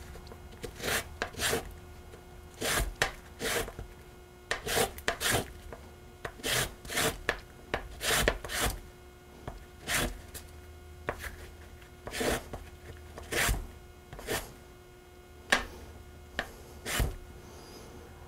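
Orange peel being zested on a handheld metal rasp grater: short scraping strokes of the peel across the grater's teeth, irregular, about one or two a second with brief pauses.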